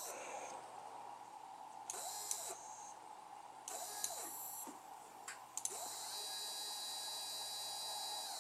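Small printer stepper motor driven by a CNC controller, whining in short moves with brief rising and falling pitch sweeps. About six seconds in it settles into a longer run at a steady pitch, over a constant faint tone.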